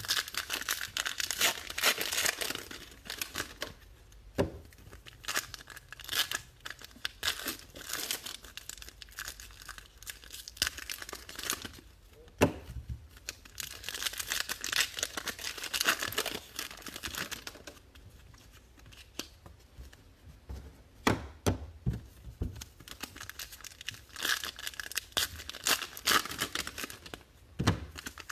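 Baseball card packs being torn open by hand, their wrappers tearing and crinkling in repeated bursts with sharp clicks and rustles between.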